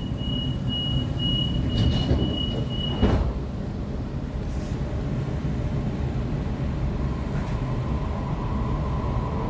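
Waratah electric train's door-closing warning tone beeping for about three seconds, ending with a thud as the doors shut. Then the low rumble inside the carriage as the train moves off, with a faint steady motor whine coming in near the end.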